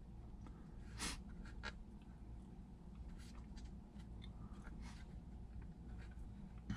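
Faint handling noise from a 3D-printed plastic airsoft FPG being folded shut: a few light plastic clicks and rubbing, the sharpest click about a second in.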